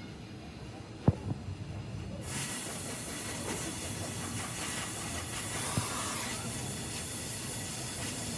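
A sharp knock about a second in, then a steady loud hiss of compressed air from an air tool that starts about two seconds in and cuts off abruptly near the end.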